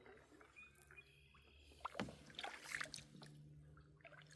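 Near silence, with a few faint knocks and light water sounds about two seconds in as a small fishing boat is turned.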